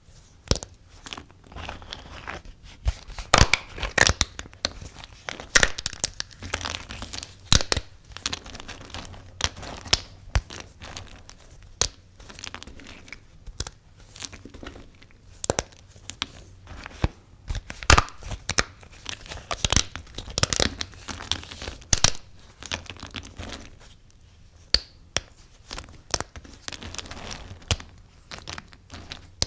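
A blade cutting through dry soap, with crisp crackling, crumbling and irregular sharp snaps, some much louder than the rest.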